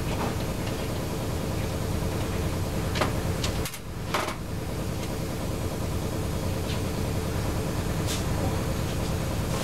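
A steady background hum with a few light clicks of small metal carburetor parts and a hand tool being handled on a workbench, as a jet is taken out of an outboard carburetor.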